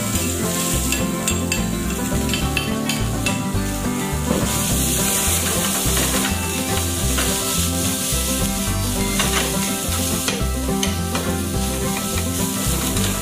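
Cooked rice frying in oil in a pan on a gas burner, with a steady sizzle, while a spatula stirs it and scrapes and taps against the pan at irregular moments.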